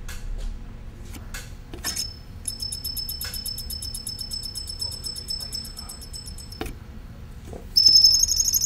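Radiant-energy pulse motor built from a tape drive motor, its switching coil circuit giving a high-pitched pulsing whine as it is started up. A few sharp clicks come first, the whine starts about two seconds in, cuts off with a click, and comes back louder near the end.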